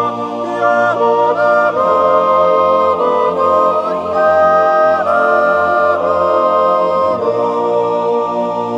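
Swiss yodel choir singing a cappella: several voices hold sustained chords that move together every second or so, settling into a long held chord near the end.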